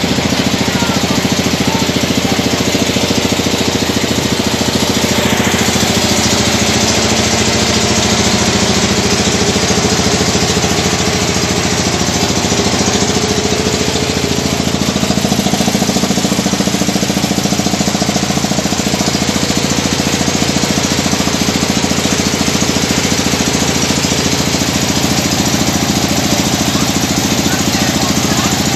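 Small wooden ferry boat's engine running steadily and loudly while the boat is underway, heard from on board.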